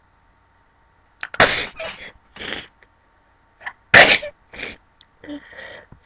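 A person sneezing twice, about two and a half seconds apart: each loud sneeze comes after a short catch of breath and is followed by smaller, quieter sounds.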